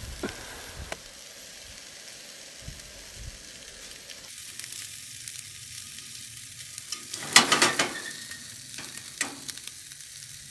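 Sausages sizzling in a frying pan on a Coleman dual-fuel camp stove. About three-quarters of the way in, a utensil clatters and scrapes against the pan, the loudest moment, and there is one more click about a second later.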